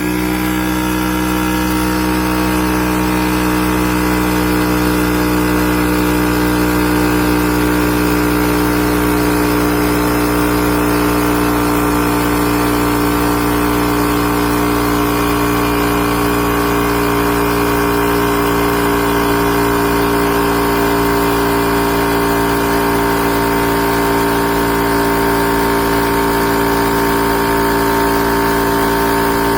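Inzeetor 12V portable tire inflator's compressor switching on abruptly and running steadily, its pitch drifting slightly lower as it works.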